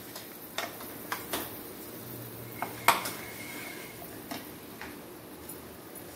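Scattered light knocks and taps as a wooden rolling pin, a flour tin and a ball of dough are handled on a round wooden rolling board, the sharpest knock about three seconds in.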